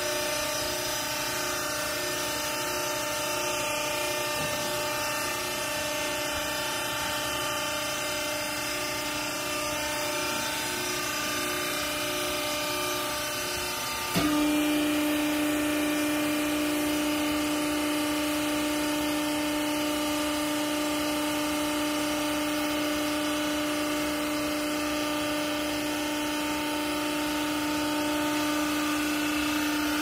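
Electric hydraulic power pack of a vertical waste-cloth baler running with a steady motor hum and whine. About halfway through there is a click and the tone jumps louder and steadier as the pump comes under load driving the press plate down onto the clothes.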